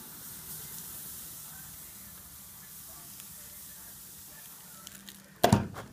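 Case hardening compound hissing and sizzling as it melts on the red-hot anvil steel, fading slowly, with a few faint ticks. A loud, brief clatter comes near the end.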